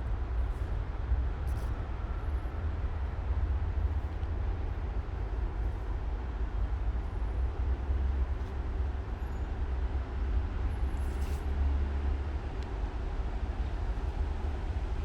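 Steady low outdoor rumble with a light hiss, broken by a few faint clicks.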